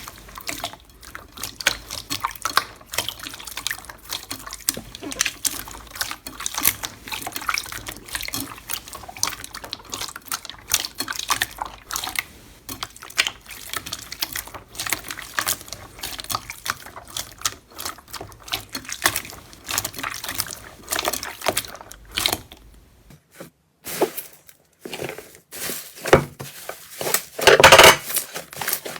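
Slime being squeezed and kneaded by hand, making a steady stream of wet clicks and pops. About three-quarters of the way through the sound changes to louder, crunchier crackling.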